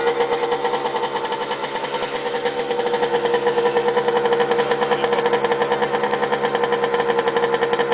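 Small two-stroke moped engine running hard and steady, a rapid buzzing pulse at an even pitch, getting a little louder about three seconds in.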